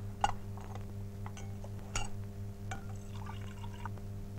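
Several light clinks of an enamel mug against metal dishes, then a brief patch of milk being poured about three seconds in, over a steady low hum.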